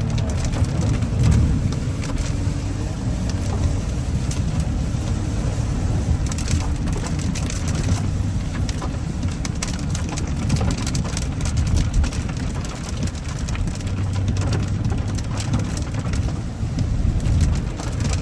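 Audi Q7 with a supercharged V6 being driven on a test drive after its misfire repair: a steady low engine and road rumble with scattered crackling noise over it.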